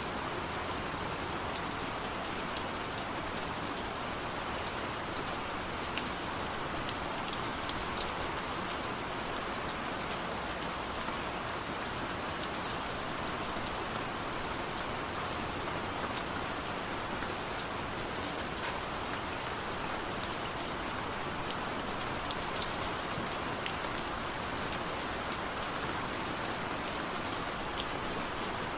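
Steady rain falling, an even hiss with scattered sharp drop ticks and no thunder.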